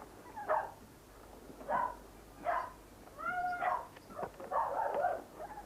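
Puppies whining and yelping, a string of about five short high-pitched cries. A longer cry rises and falls about three seconds in.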